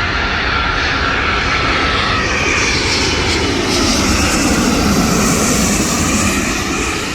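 Jet airliner on final approach passing low overhead, its engines running with a steady roar and a high whine that slides down in pitch. It is loudest about five seconds in, then begins to fade.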